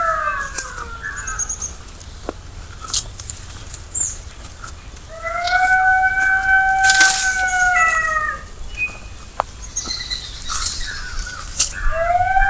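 Dog howling at night: long, steady howls, each held about three seconds before sliding down in pitch. One howl dies away about a second in, another rises about five seconds in and falls off near eight seconds, and a third begins near the end. Short high chirps and clicks come in between.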